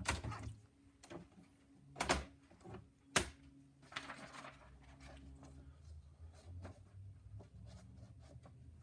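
Nakajima AE-710 electronic typewriter initializing after switch-on: mechanism clicks and clunks, the two sharpest about 2 and 3 seconds in, then a low steady motor hum with small ticks.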